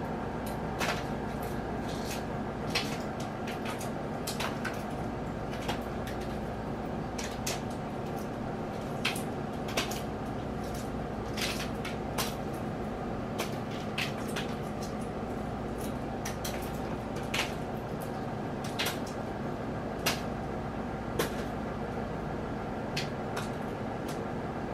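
Small, irregular clicks and cracks of a hard-boiled egg's shell being peeled by hand, about one every second, over a steady low hum.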